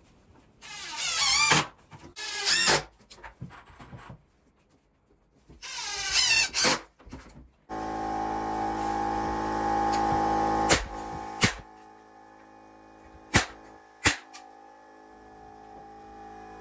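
A cordless drill driving screws in three short bursts, its whine wavering as the trigger is worked. Background guitar music then comes in about eight seconds in, with a few sharp clicks over it.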